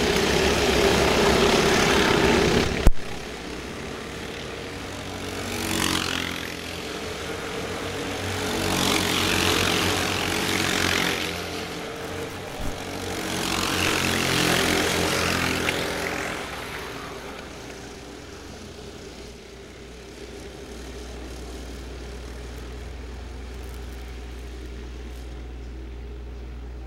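Racing go-kart engines buzzing as karts pass, the sound swelling and fading four times as they go by close, then fainter and more distant in the later part. A single sharp click about three seconds in.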